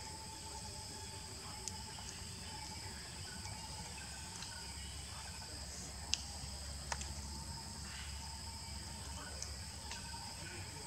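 Faint, steady chorus of insects holding continuous high-pitched tones, with a few short sharp clicks, the clearest about six and seven seconds in.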